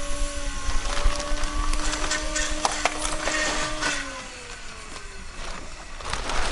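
A vehicle engine running steadily, then dropping in pitch and fading out about four seconds in. Scattered clicks and rustles of packaging being handled sit over it.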